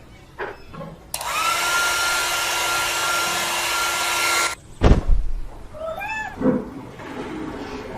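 A loud, steady, blowing whir like an electric appliance motor runs for about three and a half seconds and cuts off suddenly, followed by a heavy thump and then a few short cat meows.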